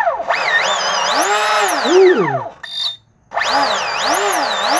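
3200 kV brushless motor in a Vector SR48 RC boat, run up out of the water. A high whine climbs as the throttle opens, holds, and winds down, cuts out for a moment a little under three seconds in, then spins up again.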